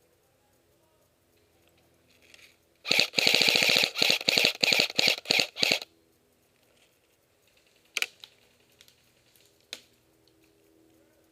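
Airsoft gun firing a rapid string of shots for about three seconds, fastest at first and then in quick single shots, followed by two more single cracks a couple of seconds apart.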